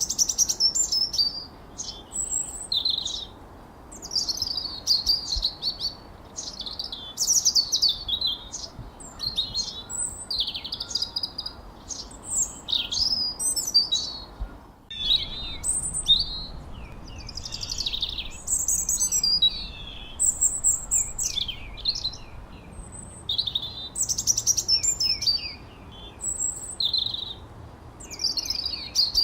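Birds chirping and whistling in quick, high phrases that overlap one another without a break, over a faint low background hiss. The sound cuts out for an instant about halfway through.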